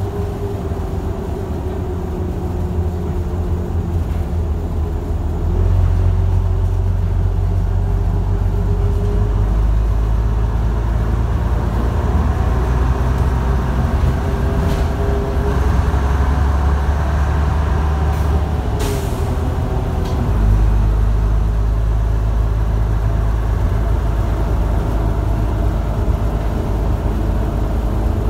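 Daimler Fleetline double-decker bus's engine running as the bus drives along, heard inside the lower saloon. It gets louder about five seconds in and changes note again about twenty seconds in. A short hiss comes about two-thirds of the way through.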